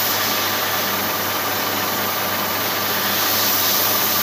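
Machine spinning a Jaguar XK140 crankshaft while a 240-grit abrasive strip is held against a journal: a steady hiss over a constant motor hum. This is the final polishing stage, taking the marks off the journal.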